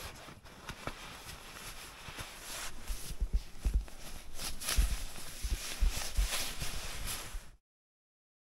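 Nylon down booties and down-filled sleeping gear rustling and crinkling as they are handled and pulled on, with soft thumps of the gear against the body. The rustling grows busier about halfway through and cuts off abruptly near the end.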